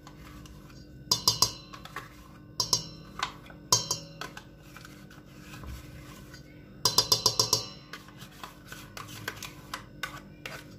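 Metal spoon clattering and scraping against a stainless-steel mixing bowl in short bursts of rapid strokes while chocolate flan and yogurt are stirred into cream. The longest, loudest run of strokes comes about seven seconds in.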